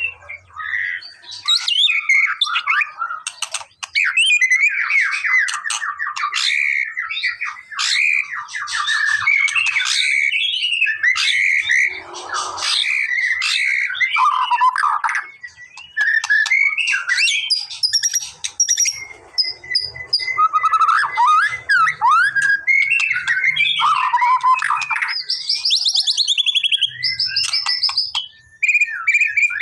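White-rumped shama singing without a break: a long, varied run of clear whistles, fast trills and chattering phrases, with rising and falling notes.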